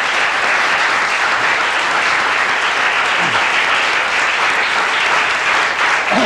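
Audience applauding steadily, a dense unbroken clapping.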